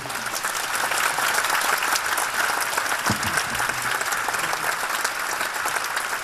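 Audience applauding steadily at the end of a piece.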